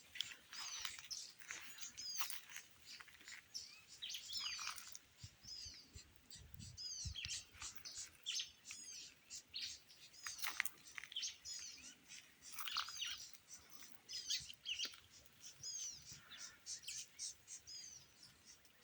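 Small songbirds singing and chirping in quick, repeated sweeping notes, without a break, with several birds overlapping.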